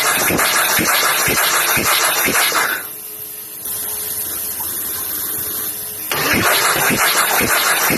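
Skid steer's diesel engine turning over on its starter with the injectors removed, chuffing about twice a second as it clears oil from the hydrolocked cylinders. The cranking stops about three seconds in, leaving a quieter steady hum, and starts again about six seconds in.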